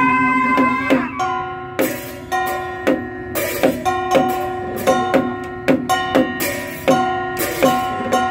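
Traditional Vietnamese Cao Đài ritual ensemble (nhạc lễ) playing an instrumental piece. A held melody note sounds in the first second, then plucked string notes and percussion strokes fall on a steady beat, a little under two a second.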